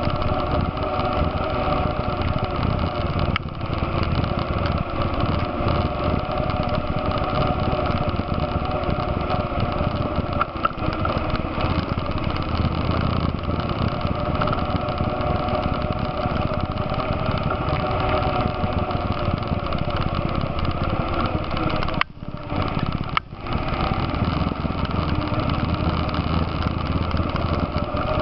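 ATV engine running steadily under way, its note rising and falling a little, with rough trail noise mixed in. The sound briefly drops twice near the end.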